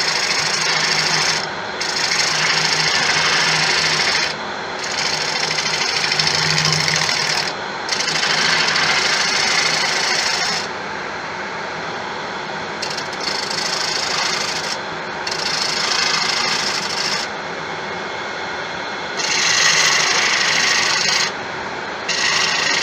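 Turning tool cutting into a large tiger wood blank spinning on the lathe: shaping cuts in repeated passes of a few seconds each, with short breaks between them, to smooth out a bump in the profile.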